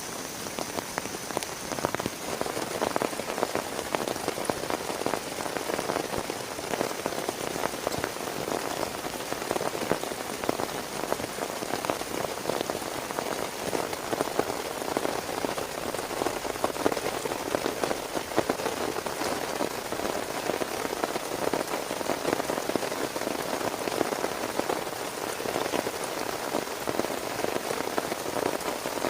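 Heavy rain falling steadily, a dense, rapid patter of drops striking a surface.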